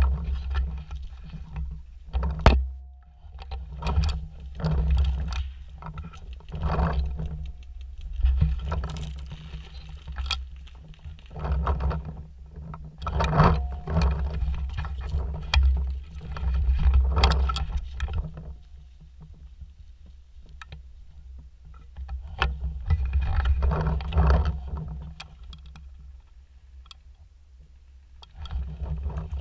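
Handling and movement noise from a gun-mounted camera: repeated bursts of rustling and scraping, with a few sharp pops or knocks, over a steady low rumble.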